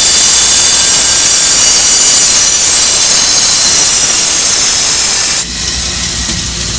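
Bandsaw blade cutting through a thick wooden decoy-head block: a loud, steady, high-pitched sawing noise that stops abruptly about five and a half seconds in as the blade breaks through, leaving the saw's motor running free with a low hum.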